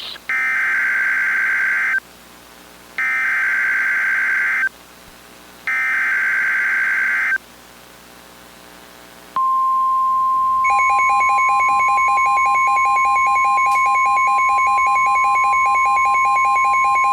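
An Emergency Alert System SAME header is sent three times as identical buzzing data bursts of about 1.7 seconds each, with short gaps between them. About nine seconds in, the steady 1050 Hz NOAA Weather Radio warning alarm tone starts. About a second later a rapidly pulsing beep joins it.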